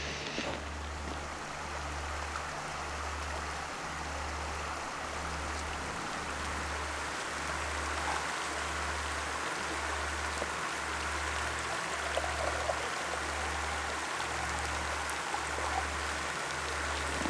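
Shallow, rocky river flowing steadily, with rain falling.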